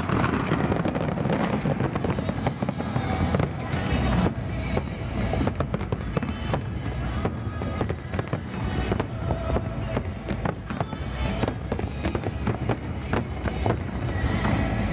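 Aerial fireworks shells bursting in quick succession, a dense run of overlapping bangs throughout.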